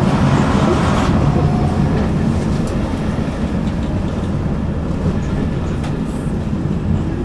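Tram rolling along its track, heard from inside the car: a steady, heavy rumble of wheels on rails with a few faint clicks. It is louder for the first second as another tram passes close by on the other track, then settles.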